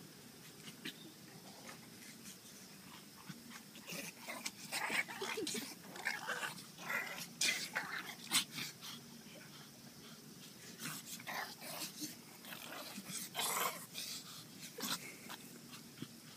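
Dogs barking and growling at play: two flurries of short barks with a lull between them, after a quiet start.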